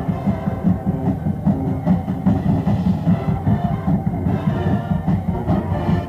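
High school marching band playing, brass and woodwinds over drums keeping a steady beat, recorded on a cassette deck from the stands, so the sound is dull with little treble.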